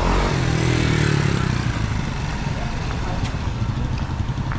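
A motorcycle engine running close by, its pitch sinking slightly over the first second or so as it passes, then a steady low engine rumble.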